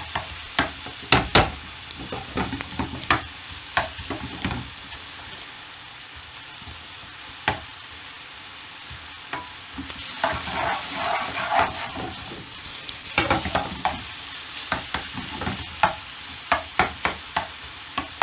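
Finely diced onion sizzling in hot olive oil in a pan while a utensil stirs it, knocking and scraping against the pan. The stirring knocks stop for a few seconds in the middle, leaving only the steady sizzle, then pick up again.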